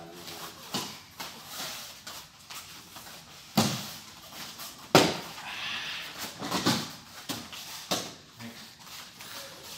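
Bodies landing on foam training mats during aikido throws and breakfalls: a series of separate thuds and slaps, about six in all, the loudest about five seconds in.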